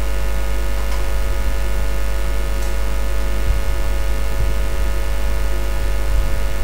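Steady electrical mains hum and buzz in the microphone recording, made of many steady tones held unchanged throughout.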